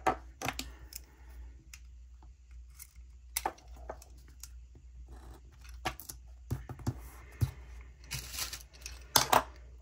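Light clicks, taps and paper rustles from handling stickers and planner pages with metal tweezers on a desk. They come scattered, with a short rustle of paper about eight seconds in and the sharpest clicks just after nine seconds.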